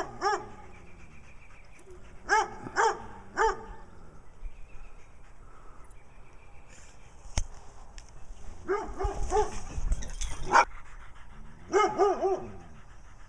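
A dog barking in short, separate barks: one at the start, three a few seconds later, a longer string of barks past the middle, then a quick run of three near the end.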